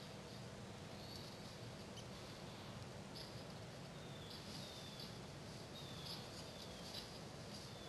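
Faint outdoor background with small birds chirping: short high chirps, several of them falling in pitch, repeating more often in the second half, over a faint steady low hum.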